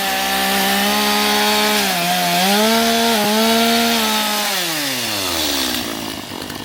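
Chainsaw at full throttle cutting wood, its engine note sagging briefly twice under load. About five seconds in the throttle is released and the engine winds down.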